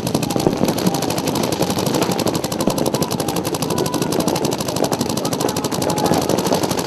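Paintball markers firing rapidly and continuously, shot after shot many times a second, without a pause.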